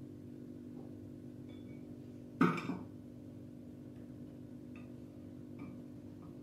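A person coughs once, briefly, about two and a half seconds in, over a steady low hum.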